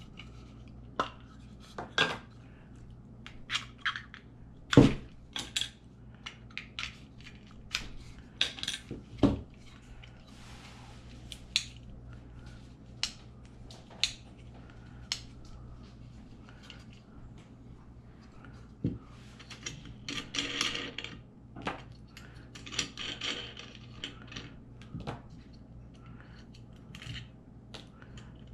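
Irregular clicks, clacks and light metal clinks of a plastic battery disconnect switch being taken apart by hand, its cover coming off and small nuts and washers set down on a table. Two short scraping rustles come about two-thirds of the way through.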